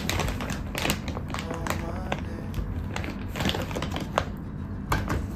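A miniature dachshund sniffing in quick, irregular snuffles at a plastic treat bag, with the bag crinkling in a hand.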